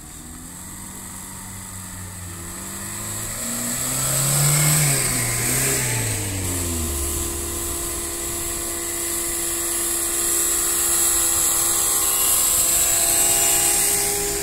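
A Lada Niva's engine pulling up a gravel road and driving past close by. Its pitch rises as it approaches and drops as it goes past, about four to six seconds in. A steady engine hum from other vehicles nearby carries on afterwards.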